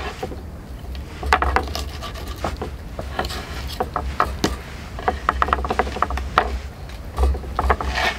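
A knife scraping and tapping on a wooden cutting board while a small raw fish is filleted, in irregular short clicks and rubs. A steady low rumble runs underneath.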